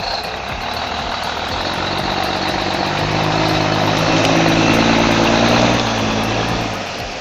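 Heavy truck engine running, growing louder to a peak about five seconds in and then fading.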